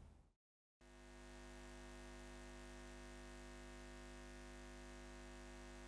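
Faint steady hum made of many held tones. It fades in after a brief dead silence and fades out near the end.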